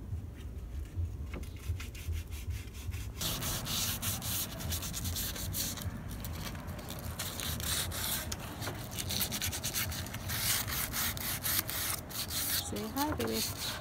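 Wooden cabinet door being sanded by hand with sandpaper to take down the old finish before painting: rapid back-and-forth scratching strokes that start about three seconds in.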